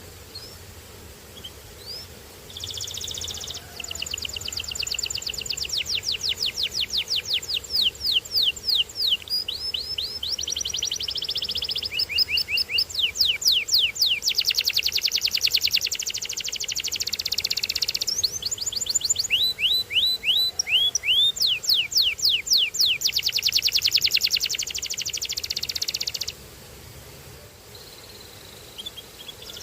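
Canary singing: long runs of rapid repeated high notes and trills, many falling in pitch, changing speed from phrase to phrase. The song starts a couple of seconds in and stops about three seconds before the end.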